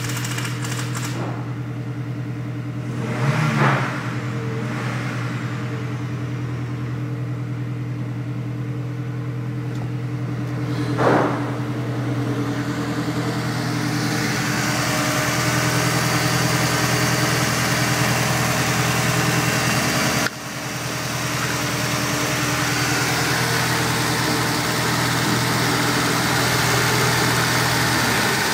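Audi 80 B3's 2.0-litre AAD four-cylinder petrol engine idling steadily, blipped briefly twice, a few seconds in and again about eleven seconds in. From about halfway it is heard close up in the open engine bay, with more hiss and mechanical clatter over the idle.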